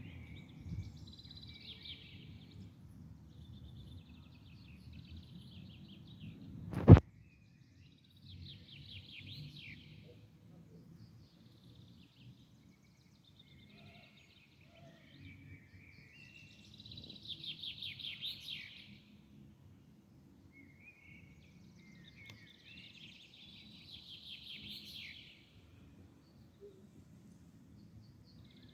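Songbird singing short twittering phrases every few seconds over a steady low background rumble. A single sharp knock sounds about seven seconds in, louder than anything else.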